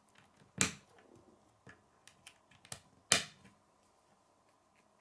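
K'nex plastic rods snapping into a round connector: two sharp clicks, about half a second in and about three seconds in, with lighter ticks of plastic pieces handled on a wooden table between them.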